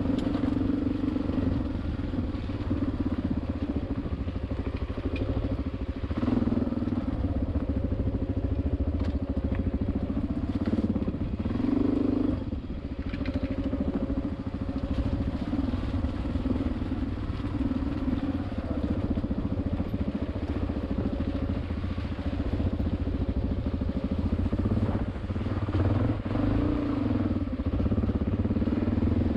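Engine of an off-road vehicle running steadily under way, its pitch rising and falling now and then with the throttle.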